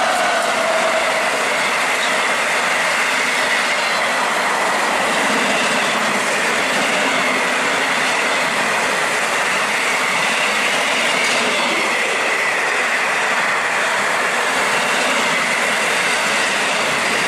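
Container wagons of a fast freight liner train rushing past, a steady loud rumble and roar of wheels on rail with a thin, wavering high whine running through it.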